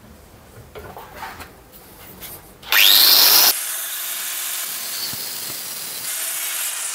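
Small angle grinder with a cutting disc spinning up with a rising whine nearly three seconds in, then grinding into the steel of a two-stroke scooter exhaust silencer with a steady hiss, cutting away the spot welds that hold its restrictor cap. Light handling noises come before it.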